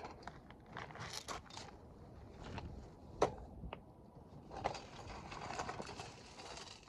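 BMX bike being handled during dismantling: scattered metal clicks and rattles, a sharp knock about three seconds in, and a stretch of rustling, scraping noise near the end.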